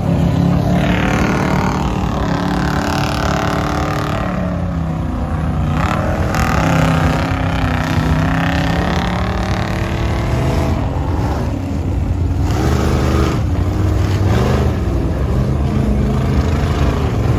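Lifted mud truck engines revving hard while plowing through flooded mud, the engine pitch rising and falling over and over, over the hiss of water and mud being thrown up.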